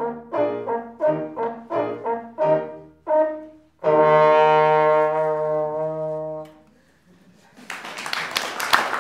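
Trombone with piano accompaniment playing a run of short, separated notes, then a long held final note that fades out halfway through. After a brief hush, audience applause starts near the end.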